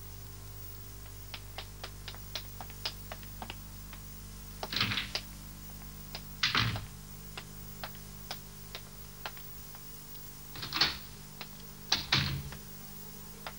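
Footsteps on a wooden floor: a run of light quick taps about four a second, then a few heavier knocks and thuds, over a low steady hum.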